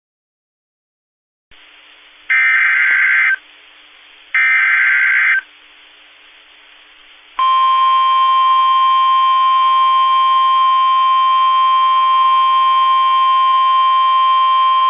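NOAA Weather Radio emergency alert: two one-second bursts of SAME digital header data, then, about seven seconds in, the loud steady 1050 Hz warning alarm tone, which announces a new warning.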